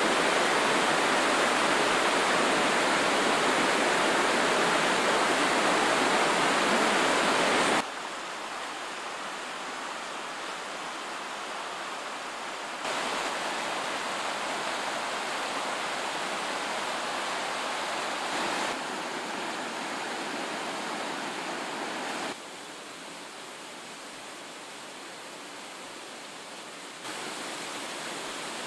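Rushing water of a mountain stream and waterfalls in a gorge, a steady hiss that jumps abruptly to a different loudness several times, loudest for the first eight seconds or so.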